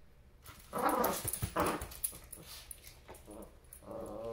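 Puppy growling in short bursts while playing with a plush toy, ending in a longer, wavering growl near the end.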